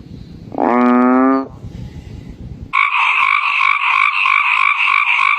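Frog calls: a single pitched croak about a second long, then, near three seconds in, a loud, fast-pulsing trill of about five pulses a second that runs on.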